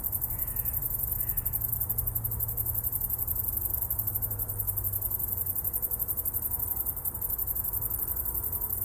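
Insects chirping in a fast, even, high-pitched pulsing trill, over a low steady hum.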